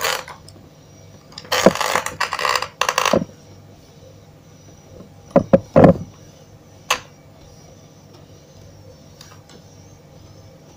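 Handling noises at a workbench while a circuit board is being soldered: a stretch of scraping about two seconds in, a few short knocks around the middle and a single click near seven seconds, over a steady low hum.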